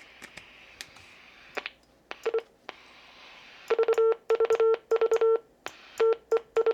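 Quansheng UV-K1 handheld radio's CW sidetone, a low steady beep near 450 Hz, sending Morse code dits and dahs from an iambic paddle. There are a few light clicks first, a short pair of beeps about two seconds in, then quick groups of short and longer beeps from near the middle on. This is the radio's keyer confirming that the paddle is wired and working.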